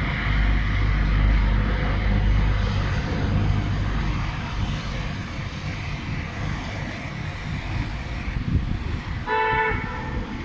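Road traffic: a low vehicle rumble that eases after about four seconds, over a steady hiss, then one short car horn honk near the end.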